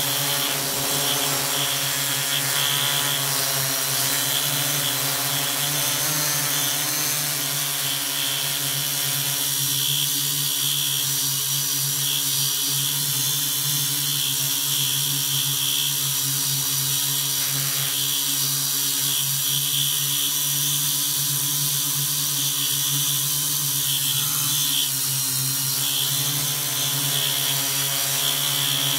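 Multirotor drone's electric motors and propellers, a steady buzzing whine with a high tone on top, heard from the camera on board. The pitch wavers through the first nine seconds or so, then holds steady.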